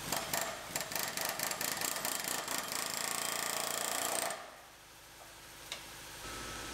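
Pneumatic air chisel hammering in a rapid rattling run for about four seconds, then cutting off suddenly.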